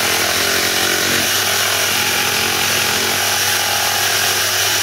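Ryobi 18V One+ HP brushless one-handed reciprocating saw cutting across the grain of a piece of timber. It runs steadily and evenly under load.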